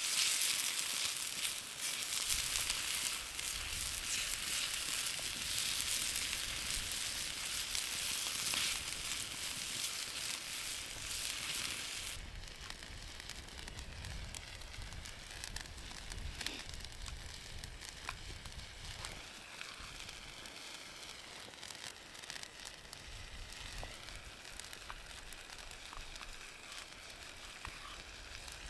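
Food sizzling in a pan over a campfire, a loud steady hiss that drops abruptly about twelve seconds in to a quieter hiss with scattered crackles.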